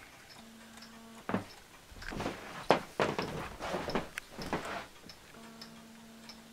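Wall clock ticking softly over a low steady hum, with about three seconds of irregular clattering and rustling handling noise in the middle.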